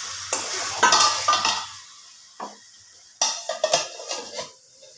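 Chicken sizzling in a steel pan while a plastic spatula scrapes and stirs it; the sizzle dies down after about two seconds. Then a stainless steel lid is set on the pan with a clatter of several sharp metallic clinks.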